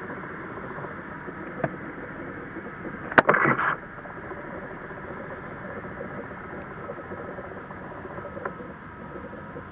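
CFM LEAP-1A turbofans of an Airbus A321neo at taxi power, a steady engine noise with a faint thin whine. About three seconds in, a sharp click and half a second of rustling stand out above it.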